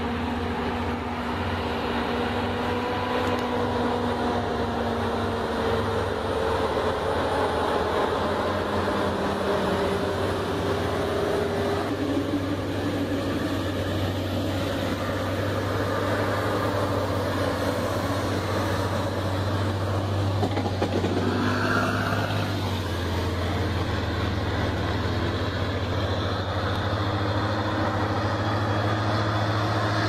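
Diesel engines of heavily loaded logging trucks running steadily on a dirt road, their pitch shifting a few times through the stretch.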